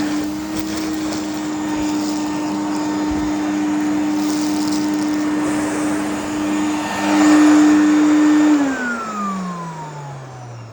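Hoover Aquamaster vacuum cleaner running with a steady motor whine, louder for a moment about seven seconds in, then switched off and winding down with a falling whine over the last two seconds.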